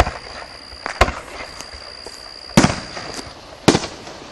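Aerial firework shells bursting overhead: four loud, sharp bangs spread over about four seconds, with a smaller pop just before the second. Each bang trails off in an echo.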